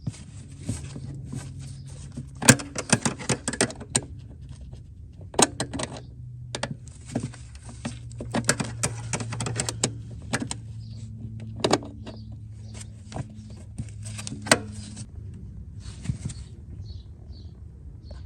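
Irregular metallic clicks and clinks of a wrench working on a brake-line flare nut and the steel line as it is tightened, over a low steady hum.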